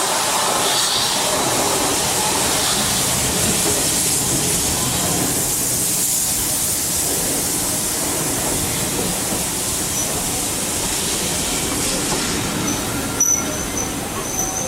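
Railway train running on the line, a steady loud rush of running noise, with a thin high wheel squeal setting in near the end.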